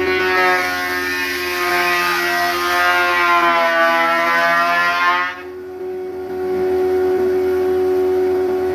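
Thickness planer running with a steady whine while its cutterhead planes a long, thick solid-wood plank. The cutting noise is loud for the first five seconds or so, and the machine's pitch sags briefly under the load. The cutting noise then stops abruptly and the machine keeps running.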